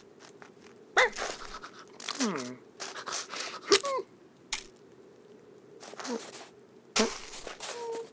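Cartoon sound effects of a cat and dog tussling over a stick: sharp cracks, the loudest just before four seconds in as the stick snaps in two, mixed with short voiced animal grunts and a falling whine. A brief held hum comes near the end.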